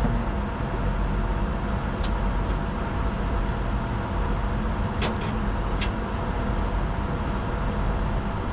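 Steady rush of airflow and engine noise in the flight deck of a Bombardier Challenger 605 jet during descent, with a few faint clicks.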